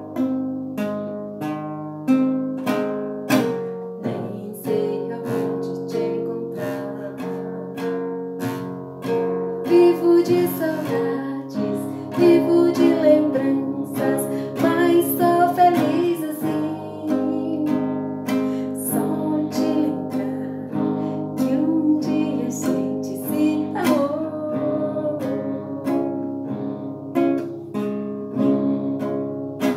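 Cutaway acoustic guitar being played solo, with a steady run of plucked chords and single notes, each attack ringing on under the next.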